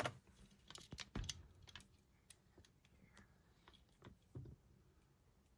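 Faint, scattered clicks and taps of small die-cast toy cars being handled, with a few louder knocks about a second in and again past four seconds.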